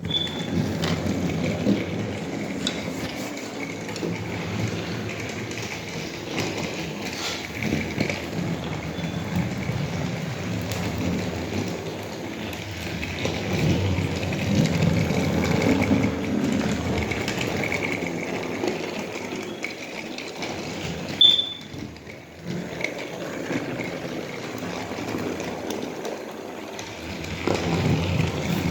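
Motorised toy train engine running along a plastic track layout: a steady motor-and-wheel running sound that starts at once, with a brief dip about twenty-one seconds in.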